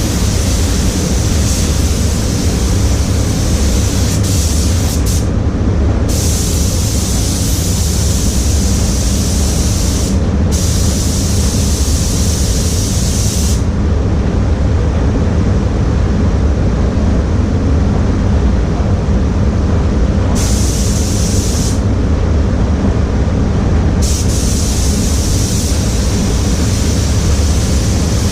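Automotive paint spray gun hissing in long passes over the steady low rumble of a spray booth's fans. The hiss stops briefly about 5 and 10 seconds in, drops out for a longer stretch in the middle, and stops again for a couple of seconds shortly after it returns.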